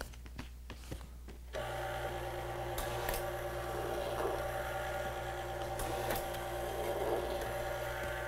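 Dispensa-Matic Flex+Matic flat label applicator starting about a second and a half in and running with a steady motor hum as flat cardboard cartons are fed through it, with sharp clicks twice as boxes pass and are labeled. Light cardboard handling before it starts.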